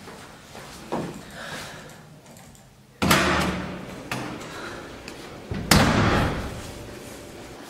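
A front door being opened with a sudden clunk about three seconds in, then shut with a louder thud a little before six seconds in.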